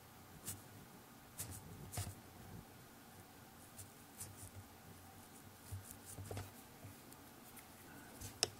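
Small watercolour brush dabbing and stroking paint onto cold-press watercolour paper: faint, scattered light brushing and scratching sounds, with a sharper tick near the end.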